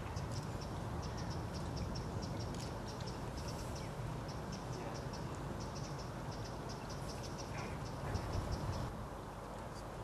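Rapid, high-pitched ticking calls of a small animal in short runs, several a second, over a steady low background rumble.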